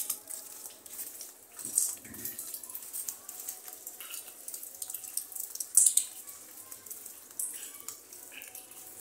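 Irregular scuffs and splashy footsteps on a wet lane, mixed with cloth rustling close to the microphone, the loudest about six seconds in.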